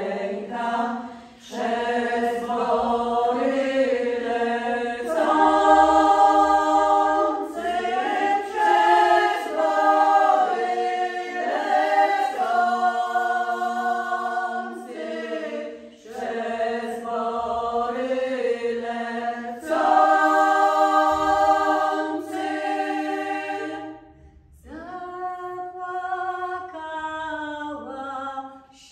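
Women's vocal ensemble singing an old eastern Polish folk song a cappella in several voices, with long held notes. The phrases are broken by short breaths, with a longer pause near the end.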